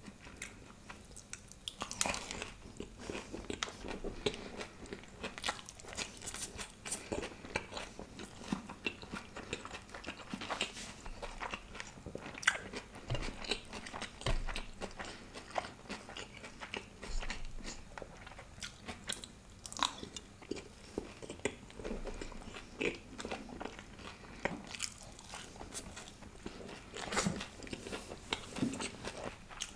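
Biting into and chewing a crispy fried spring roll dipped in green chutney: irregular sharp crunches of the fried wrapper, then chewing.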